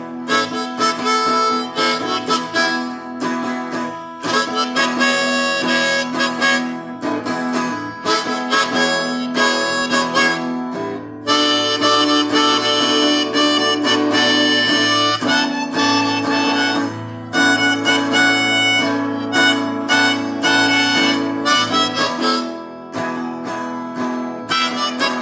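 Blues harmonica solo over guitar accompaniment in a slow blues rock song, the harp playing held, bending notes.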